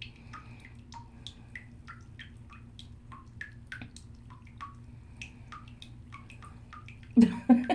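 Bathtub faucet dripping into the bath water: irregular high plinks of drops, a few a second, over a faint steady hum, with a brief voice sound near the end.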